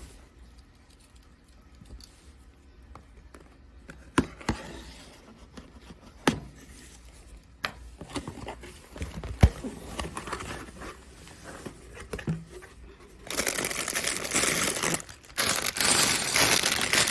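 A sealed cardboard LEGO box being opened by hand: a few sharp knocks and taps as it is handled. About three-quarters of the way through comes loud, sustained tearing and crinkling of the packaging, with one short pause.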